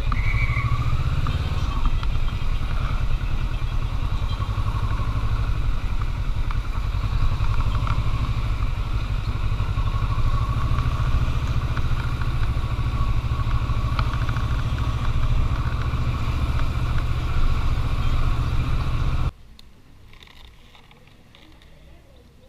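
Kawasaki Versys motorcycle running steadily at low speed, heard from a helmet-mounted camera as a steady low rumble of engine and wind. About nineteen seconds in it cuts to a much quieter background.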